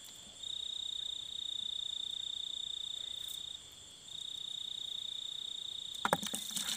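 A cricket trilling steadily on one high pitch, breaking off briefly twice. A few clicks and rustles come near the end.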